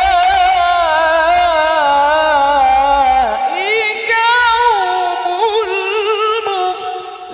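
A man's melodic Quran recitation (tilawah) sung into a handheld microphone. One long, ornamented held note slides down and trails off about three and a half seconds in, then a new phrase starts on a rising line.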